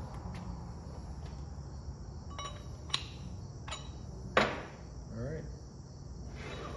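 A few clicks and knocks as a heavy metal CNC spindle and its parts are handled on a workbench, the loudest knock a little past halfway, over a steady background hum.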